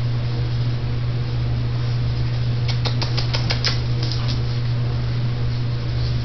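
A steady low hum, with a quick cluster of short high clicks about three seconds in, from goldendoodle puppies scrambling at their mother to nurse.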